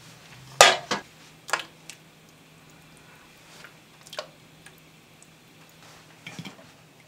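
A ladle knocking and clinking against an aluminium cooking pot while coconut milk is ladled into soup: a couple of sharp clanks about half a second in, two more around a second and a half, lighter taps near four seconds, and a short clatter of a pot lid near the end.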